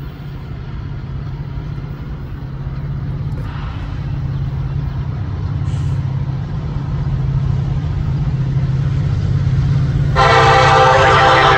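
Diesel freight locomotives, a Norfolk Southern EMD SD70ACe leading a GE C44-9W, approaching with a steady low engine rumble that grows louder as they near. About ten seconds in, the lead locomotive's air horn starts a long, loud blast.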